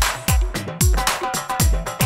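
Background electronic dance music with a steady beat: a deep kick drum about twice a second, dropping in pitch on each hit, with hi-hat ticks between.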